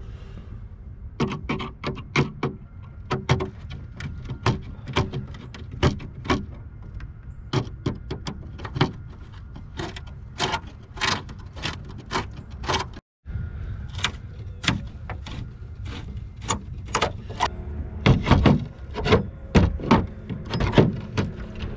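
Repeated sharp metal clanks and knocks from tools working on a john boat's bench seat as it is taken off, coming irregularly about one or two a second with a short break partway through.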